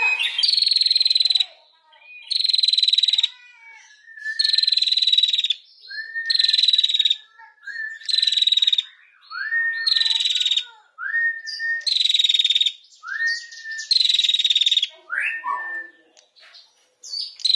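Female prenjak (prinia) calling its rapid rattling 'ngetir' call: a series of dry, buzzing trills about a second long each, repeated every second and a half or so, most of them led in by a short rising note.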